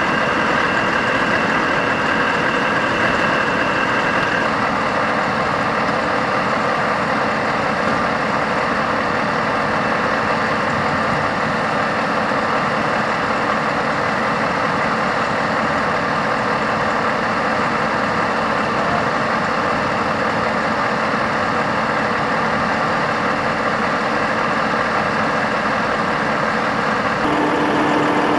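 Heavy recovery vehicle's diesel engine running steadily at idle, with a faint high steady whine over it for the first few seconds; the engine note changes near the end.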